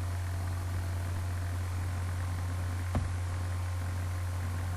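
A steady low hum with a constant hiss, broken once by a short click about three seconds in.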